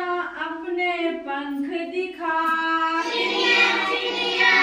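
A child singing a Hindi children's rhyme in long, held notes, growing louder and fuller about three seconds in.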